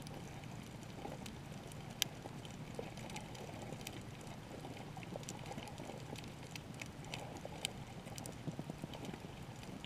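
Underwater reef ambience picked up by a submerged camera: a steady low, muffled water rumble with irregular sharp clicks and crackles scattered through it, one louder click about two seconds in.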